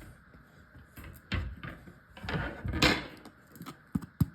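Kitchen handling sounds around a crusty sourdough loaf: a couple of scraping, rustling bursts, then a few sharp knocks near the end.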